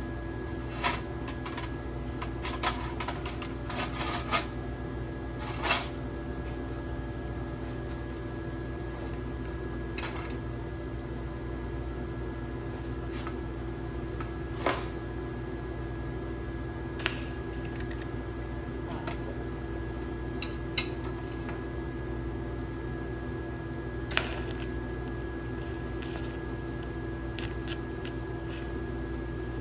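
Scattered sharp clicks and clinks of small parts and tools being handled, over a steady background hum.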